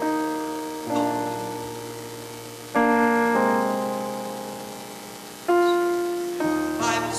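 Piano playing slow, sustained chords. A new chord is struck every second or two and left to fade.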